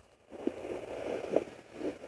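Sonoline B fetal doppler's speaker giving a whooshing hiss, with two short thumps almost a second apart, after a brief silent gap at the start.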